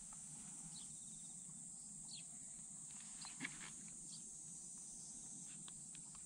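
Faint outdoor ambience: a steady high hiss and low hum, with a few short bird chirps and occasional footstep clicks on asphalt, the clearest about three and a half seconds in. No engine is running.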